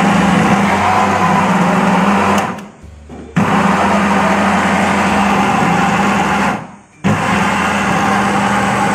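Food processor motor running under load while it chops a raw chicken and shrimp mixture. It runs in pulses of about three seconds, stopping briefly and starting again twice.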